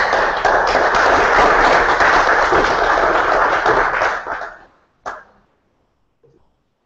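Audience applauding, a dense patter of clapping that dies away about four and a half seconds in, followed by a single short knock.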